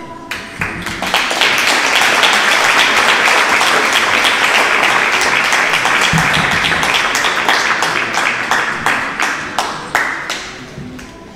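Audience applauding. The clapping builds within the first second, holds steady and loud, then thins to scattered claps near the end.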